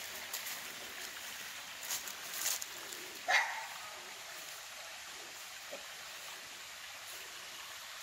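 A dog barks once about three seconds in, over the steady trickling of a small woodland creek. A few footsteps rustle in dry leaves before the bark.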